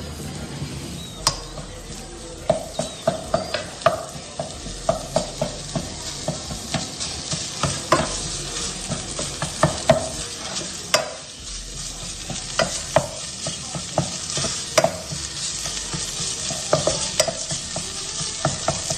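Panang curry paste sizzling as it is fried and stirred in a pan, with a steady sizzle and many sharp taps and scrapes of the spatula against the pan.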